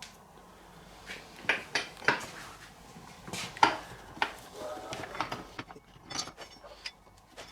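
Irregular metallic clinks and knocks, a dozen or so, as the motorcycle's front wheel axle bolt and parts are fitted by hand, loudest in the first half.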